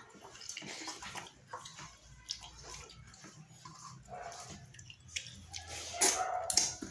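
Eating rice by hand from a stainless steel plate: fingers scraping and gathering grains on the metal, with wet chewing and lip-smacking. A louder mouthful noise comes about six seconds in, as a handful goes to the mouth.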